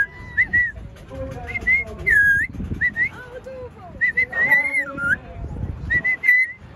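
African grey parrot whistling: a series of short whistled notes at much the same pitch, with a louder swooping whistle about two seconds in.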